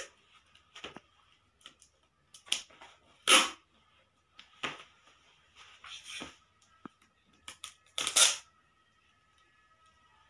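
Sellotape being pulled off the roll in short tearing strips, several times, with the loudest pulls about three seconds and eight seconds in, and small handling clicks and rustles of paper between.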